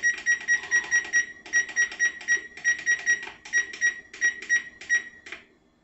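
Oven control panel beeping in a rapid series of short, identical high beeps, about four a second with a few brief pauses, as the keys are pressed to set the oven to preheat to 450°F. The beeping stops shortly before the end.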